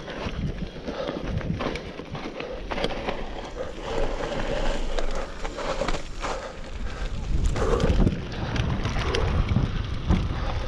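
Mountain bike riding down a dirt trail: wind buffeting the action camera's microphone, tyres rolling over dirt and gravel, and the bike clattering and knocking over bumps.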